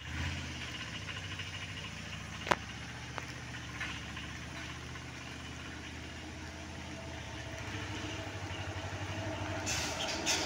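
An Indian Railways WAP-7 electric locomotive approaching slowly: a steady low hum that grows louder over the last few seconds, with a rapid clatter of wheels on rail joints starting near the end. One sharp click sounds about two and a half seconds in.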